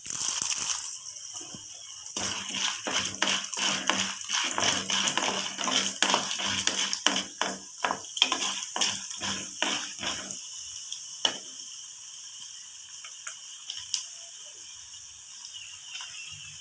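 Urad dal poured into hot oil in a metal kadai with a burst of sizzling. A wooden spatula then stirs and scrapes the lentils around the pan in quick strokes, about three a second, for several seconds. After that a faint sizzle of frying continues.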